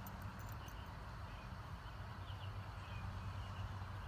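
Footsteps along a dirt path with a few faint bird chirps over a low steady rumble.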